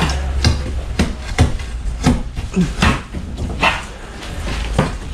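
Irregular sharp knocks on wooden floorboards and joists, about eight in five seconds, from work taking up flood-damaged floorboards.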